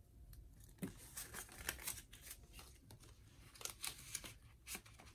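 Paper dollar bills and the clear plastic pockets of a cash budget wallet being handled: a run of soft, short rustles, crinkles and clicks.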